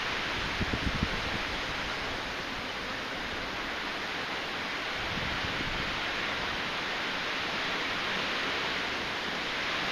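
Steady rushing noise of typhoon weather, wind and rain together, with a few low thumps of wind buffeting the microphone about a second in.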